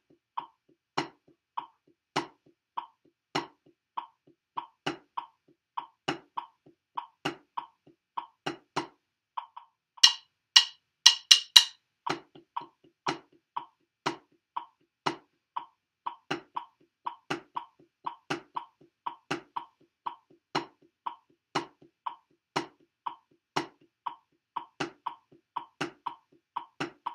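Wooden drumsticks tapping a rubber practice pad in a steady stream of eighth notes, some strokes accented louder than the rest. About ten seconds in, a handful of much louder, brighter strokes stand out.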